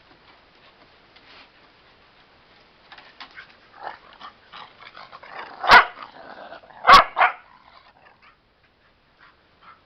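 A pet dog barking: one loud bark about halfway through, then two more in quick succession a second later, with quieter yips around them.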